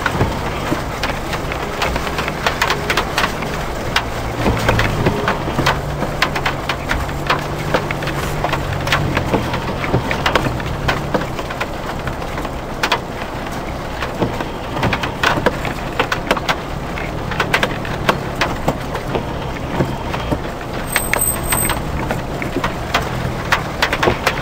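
Suzuki Jimny JB43's 1.3-litre four-cylinder petrol engine running at low, slightly varying revs, heard from inside the cab. Frequent sharp knocks and rattles come through as the lifted 4x4 jolts over a rutted, muddy track.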